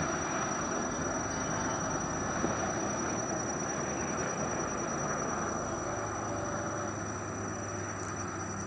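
Steady rumbling road noise of heavy vehicles going by, slowly fading, with a low engine hum coming in about six seconds in.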